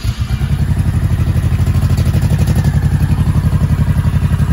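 Honda Shadow 1100 cc V-twin motorcycle engine just after starting on choke, settling within the first half second into a steady idle with an even, pulsing beat.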